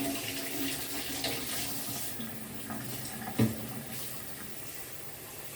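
Hot water pouring, easing off about two seconds in, with a single knock about three and a half seconds in.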